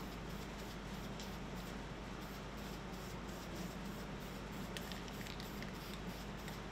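Brake caliper being scrubbed by hand with an abrasive pad: a steady rhythmic rubbing of about four strokes a second, over a low steady hum.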